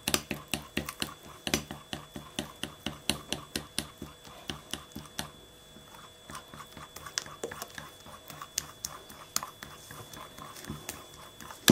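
Fork beating thick batter in a glass bowl: quick, regular clicks of the fork against the glass with wet squelching, about four to five strokes a second. After about five seconds the beating stops briefly, then goes on as slower, irregular stirring.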